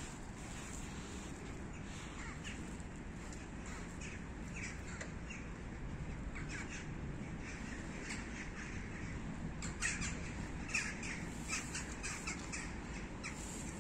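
Crows cawing several times, the calls coming thicker in the second half, over a steady low rumble.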